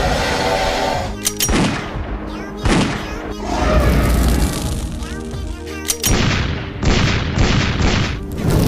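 Background music mixed with sound effects: several booms and crashes, with a quick run of four or five near the end.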